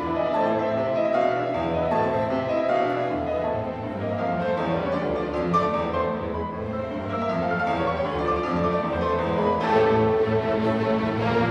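Classical background music.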